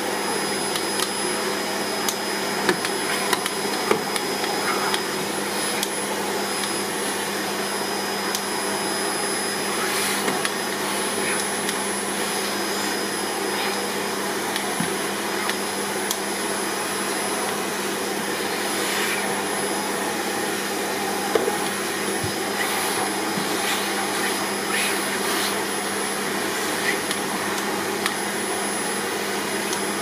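Vacuum cleaner running steadily, its nozzle rubbed along a cat's fur. Scattered short clicks and scrapes sound over the steady hum.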